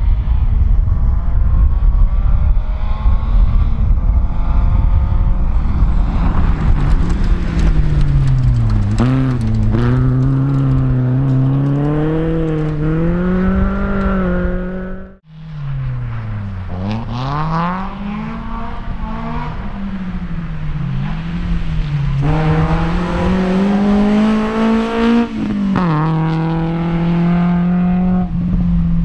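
Rally car engines on a gravel stage, revving hard and dropping in pitch at each gear change. A heavy rumble comes first. Then one car revs through several shifts until a sudden break about halfway, after which a second car revs and shifts in the same way.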